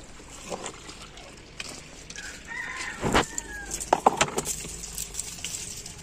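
A chicken calls once about two seconds in, a short pitched call that dips slightly in pitch. Around it come several sharp clicks and snaps, the loudest about four seconds in, as ripe tomatoes are picked by hand off the plant.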